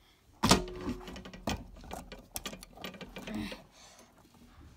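Close handling noise: a sharp knock about half a second in, a second knock about a second later, then scattered clicks and rustling.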